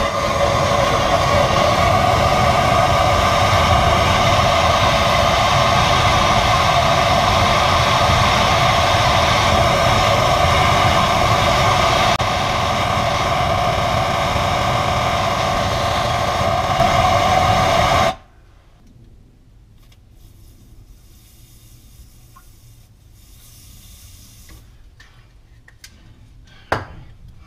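Handheld gas blowtorch burning steadily as it heats the rusted mounting ring of a garbage disposal to free seized mounting screws. It gets slightly quieter about twelve seconds in and shuts off abruptly after about eighteen seconds. A brief click follows near the end.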